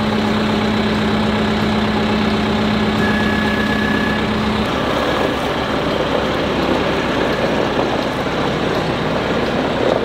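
Kubota M60 tractor's four-cylinder diesel engine running steadily as the tractor pulls away. A steady hum in the engine sound stops about halfway through, and the running turns rougher after it.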